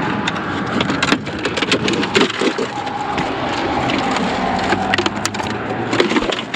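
Repeated clattering knocks and cracks as a smashed cash register is broken apart and rummaged through for loose coins.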